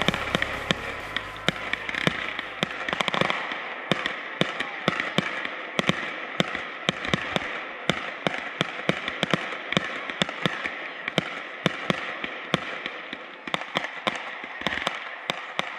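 Fireworks display: aerial shells going off in a rapid, continuous run of sharp bangs and pops, several a second, with crackling between them.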